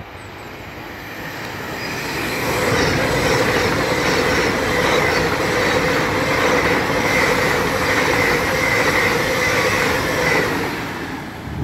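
Express passenger train passing through the station along the platform without stopping. Its rumble builds over the first couple of seconds, holds loud with a steady whine from the wheels on the rails, then fades near the end.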